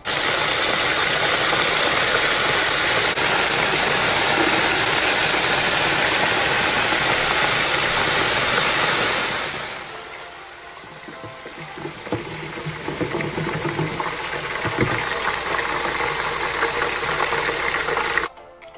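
Battered lobster tails deep-frying in a basket of hot oil: loud, steady sizzling. About halfway it drops to a quieter sizzle with scattered pops, then cuts off abruptly just before the end.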